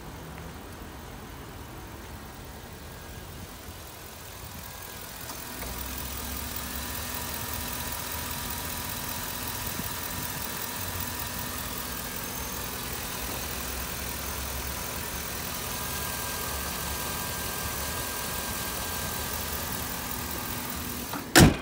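2005 Chevrolet Avalanche's 5.3-litre V8 idling steadily, getting louder about five seconds in. A single sharp knock near the end is the loudest sound.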